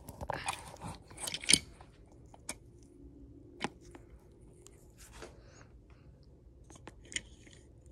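Handling noise as the recording phone or camera is set down and propped up: rustles and clicks, the loudest knock about a second and a half in, then a few scattered single clicks.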